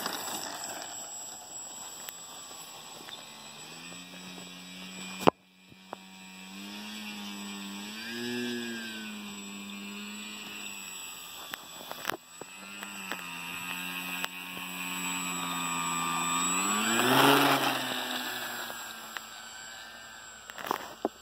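RC Sport Cub model airplane's motor and propeller buzzing, its pitch rising and falling with the throttle and peaking loudest a few seconds before the end. Two sharp clicks break the sound, about a quarter and about halfway through.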